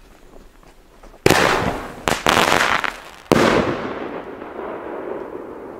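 Blackbox 'Fette Elke' three-shot mortar-tube compound firing: three loud bangs about a second apart, each fading out over a second or two.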